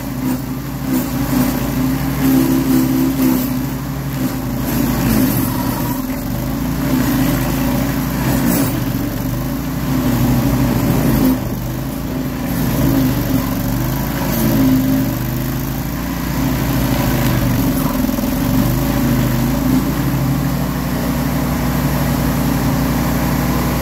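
Tracked stump grinder running under load, its engine working steadily while the cutter wheel grinds through maple roots and soil. The engine note shifts several times as the load changes.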